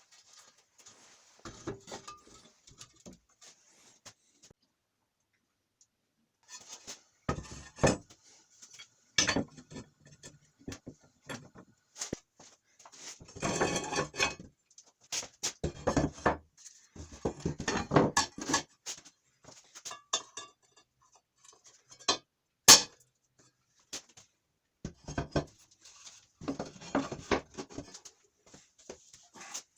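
Metal parts and tools handled on a workbench, clinking and clattering irregularly, with one sharp metallic knock about two-thirds of the way through.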